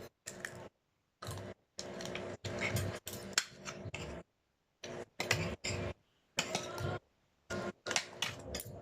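Crunching and chewing of crispy fried dried squid close to the microphone, in short crackly bursts broken by dead silences.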